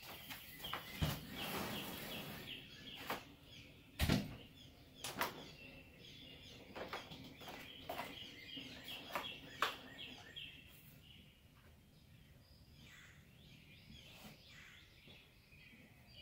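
Knocks and scrapes of a packed Smittybilt Overlander rooftop tent being tipped up and shoved against a pickup's tailgate and roof rack, the loudest knock about four seconds in. Birds chirp steadily behind.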